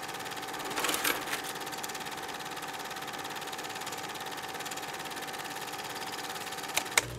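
Film projector running, a steady rapid mechanical clatter, with a few louder knocks about a second in and two sharp clicks near the end.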